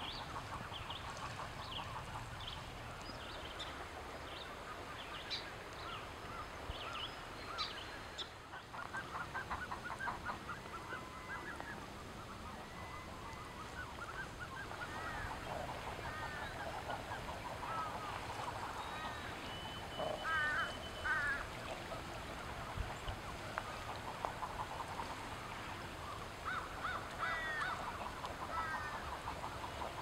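Common eiders, hens with ducklings, calling faintly: short repeated calls that come in small bunches, with a few higher chirps in the first few seconds.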